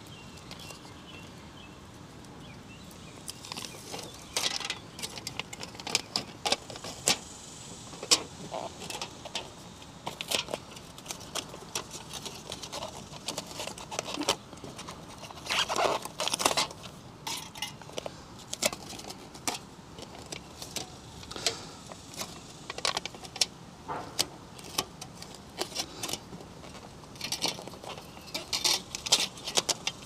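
Pieces of aluminium foil tape being handled, torn and pressed around foam pipe insulation: irregular crinkling and crackling clicks that start a few seconds in.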